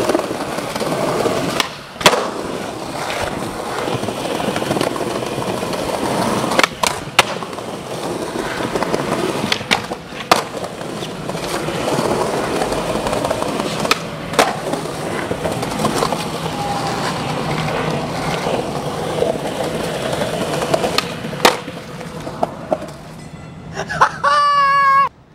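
Skateboard wheels rolling steadily over a concrete sidewalk, with a sharp clack every few seconds as the wheels hit the pavement joints and the board knocks. A brief pitched sound comes near the end.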